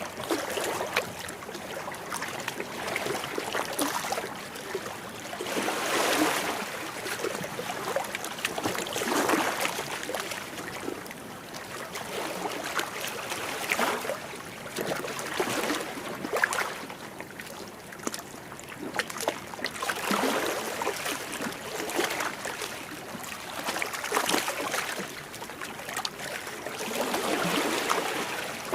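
Waves washing against rocks, splashing and sloshing in irregular surges every few seconds.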